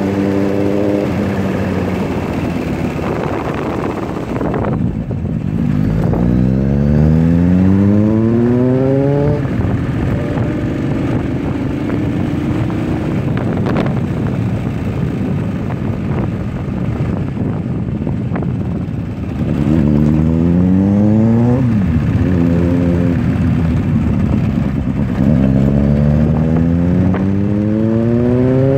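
Motorcycle with an SC-Project aftermarket exhaust pulling hard three times, its engine note climbing steeply with each burst of throttle and running steadily in between.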